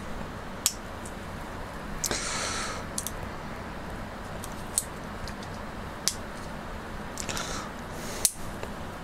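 Handling noise: scattered light clicks and two short hissing rustles, about two seconds in and again near the end, over a steady low background hum.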